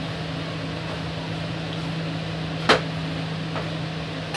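Silicone spatula stirring thick, simmering raw-mango and sugar jam in a nonstick pan, the jam cooked down to its finished, glossy stage. There is one sharp knock of the spatula against the pan about two and a half seconds in, over a steady low hum.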